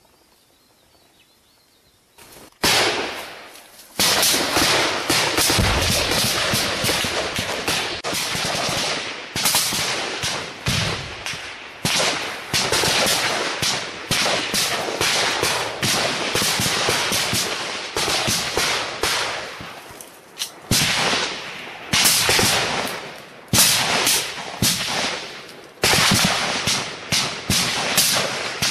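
Heavy small-arms fire in a firefight: rapid bursts of automatic gunfire and rifle shots that break out suddenly about two and a half seconds in and keep going with only brief lulls.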